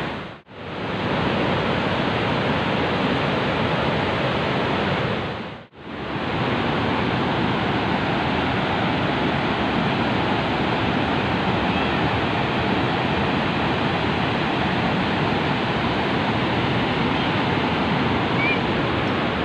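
Steady rushing of falling water from the Rhine Falls, a large waterfall. The sound drops out briefly twice, about half a second in and just before six seconds in.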